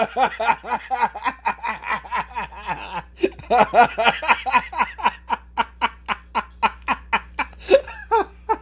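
A man laughing hard: a long, unbroken run of short, rapid laughs, about four or five a second.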